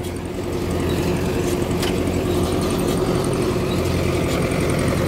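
Belarus 1025 tractor's diesel engine running steadily, driving a Welger RP 200 round baler, with the baler's pickup and chamber rattling. The baler's chamber is full, just before the bale is tied.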